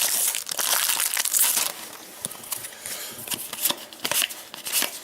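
Trading card pack wrapper being torn open and crumpled: dense crinkling for about the first second and a half, then lighter scattered crinkles and clicks as the pack and cards are handled.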